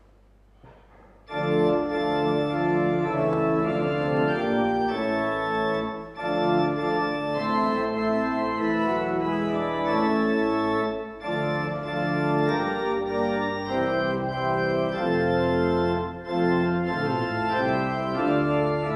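Church organ playing sustained chords, starting suddenly about a second in.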